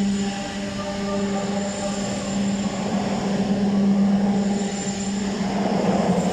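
Steady, loud industrial machinery hum from a boiler furnace plant: a continuous low drone with a hissing rush of air over it.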